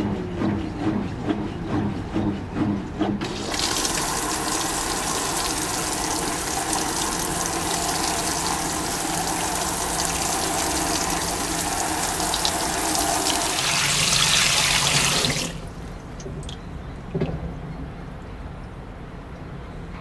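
Fisher & Paykel Washsmart top-load washer: for the first few seconds its basket winds down from spinning with a pulsing motor hum. About three seconds in, water starts spraying into the tub from the inlet with a steady rush, a spray-rinse fill. The rush cuts off suddenly after about twelve seconds.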